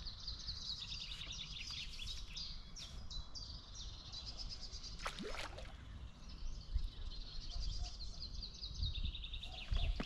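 Small birds singing in fast, high chirping trills, repeated again and again, with one long falling whistle about five seconds in, over a low steady rumble.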